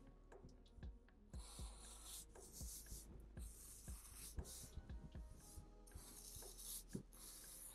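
Black marker pen drawing on paper: faint scratchy strokes about a second long each, several in a row, with small taps and knocks of the pen and hand against the paper between them.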